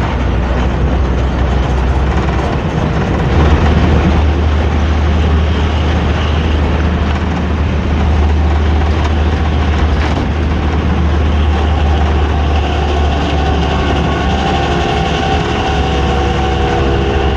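Hino AK3-HR bus running on the road, its diesel engine and exhaust giving the loud, low 'ngorok' growl heard from the rear seats, with cabin and road rumble. The rumble gets louder about three and a half seconds in, and in the second half steady tones join in over it.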